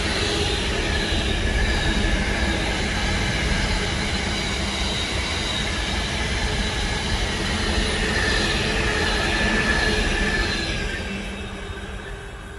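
Intermodal container wagons of a freight train rolling past, wheels rumbling on the rails with high steady whining tones over the top. The sound fades away from about eleven seconds in as the last wagon goes by.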